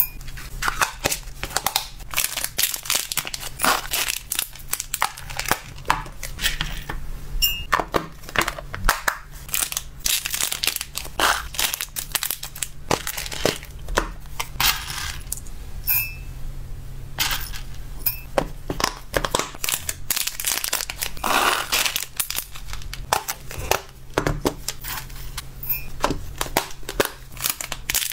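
Close-up handling of dry hamster treat pellets and plastic packaging: pellets clicking and rattling as they are spooned and poured, hard plastic container clicks, and crinkling of a small plastic bag, as a string of irregular clicks and rustles over a faint steady low hum.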